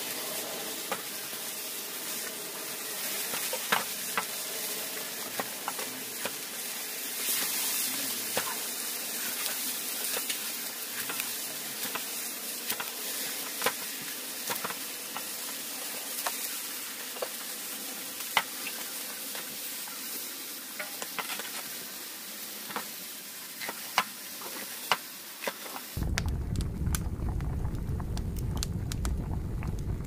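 Knife slicing green peppers on a small wooden board: irregular sharp taps as the blade cuts through into the wood, over a steady hiss. About 26 seconds in the sound changes abruptly to a louder, deeper rumble with a few crackles from a wood campfire burning under a pan.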